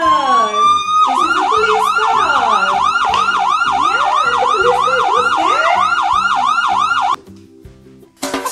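Police car siren sound effect: a rising wail for about a second, then a fast yelp sweeping up and down about three times a second, cutting off suddenly about seven seconds in.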